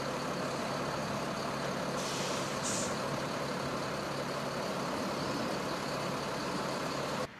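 Diesel engines of a line of military trucks idling steadily, with a brief hiss about two to three seconds in. The sound drops off suddenly near the end.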